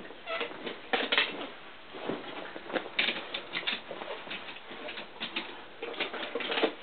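Plastic Hot Wheels wall track and die-cast toy cars being handled, giving irregular light clicks and clatters.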